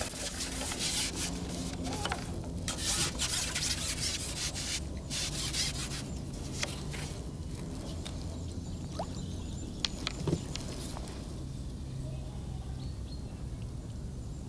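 Rubbing and rustling in bursts for about the first six seconds, then a few light clicks over steady outdoor background noise: the pole-fishing rig being handled while the float is set a few inches deeper.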